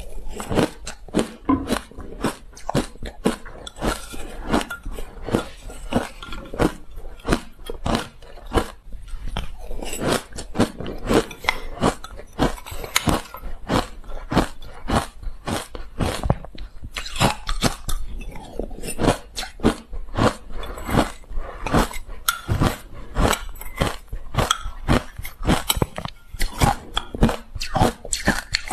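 Crushed ice being bitten and chewed close to the microphone: many sharp, crisp crunches coming several times a second in an uneven rhythm.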